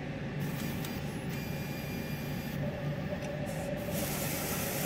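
Roland SP-540V wide-format inkjet printer running its vertical alignment test print: a steady mechanical hum, with a higher steady tone joining about two and a half seconds in.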